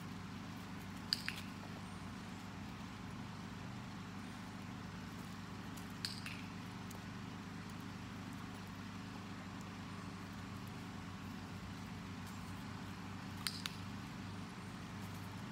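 A steady low hum throughout, with a few short, sharp clicks: a pair about a second in, one at about six seconds, and another pair near the end.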